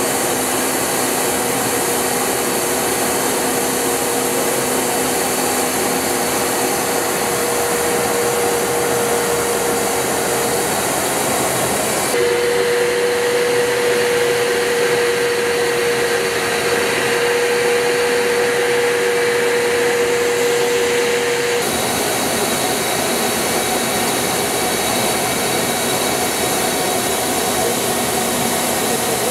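Steady jet aircraft noise in flight: an even rushing roar with a constant humming tone. About 12 seconds in it turns abruptly duller with a stronger tone, and about 22 seconds in it switches back.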